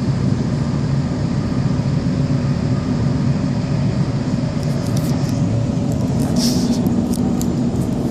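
Train running, heard from inside the carriage: a steady low rumble and drone, with a brief high-pitched hiss or squeal about six and a half seconds in.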